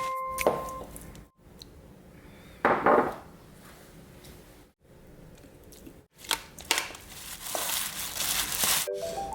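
Kitchen food-preparation sounds in short cut-together snippets: crinkling and rustling like plastic packaging or wrap being handled, with a few light knocks.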